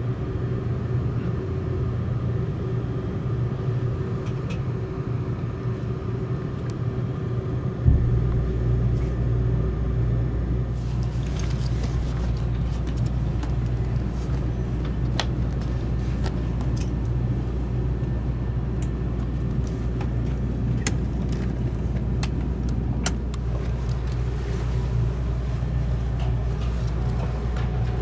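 Inside the cabin of a Seibu 001 series Laview electric train: a steady low rumble with a hum, and a single thump about a third of the way in, after which the rumble sits deeper. From a little later, scattered light clicks and taps as a hand handles the plastic seat-back tray.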